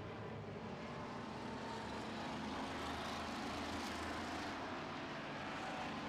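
A pack of street stock race cars running at speed on a dirt oval, their engines blending into a steady drone heard from a distance.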